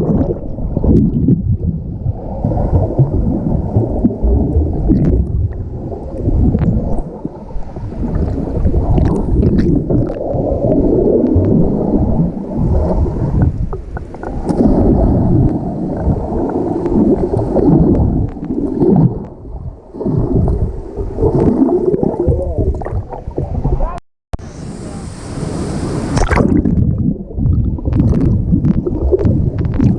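Muffled rushing and gurgling of river water picked up by a camera held underwater. Near the end the sound cuts out briefly, then a short bright hiss follows.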